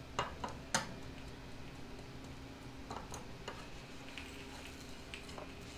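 Soft clicks and taps of a metal spoon against a nonstick frying pan while a tapioca is turned and shaped: a few sharp ticks in the first second, then sparser, fainter ones, over a steady low hum of the lit gas burner.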